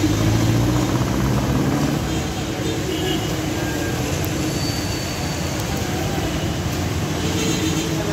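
City street traffic noise: a steady wash of vehicles, with one engine running louder over the first two seconds.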